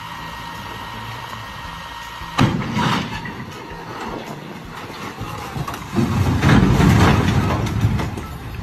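Truck-mounted crane's engine running steadily while the overloaded truck tips over backward. There is a sudden loud bang about two and a half seconds in, and a loud low rumbling crunch from about six to eight seconds in as the truck goes up on end.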